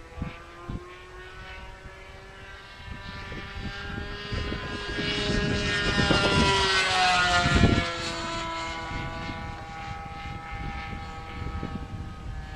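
Radio-control model airplane engine running at speed as the plane flies past: it grows louder, peaks about seven seconds in, then drops in pitch and fades as it moves away.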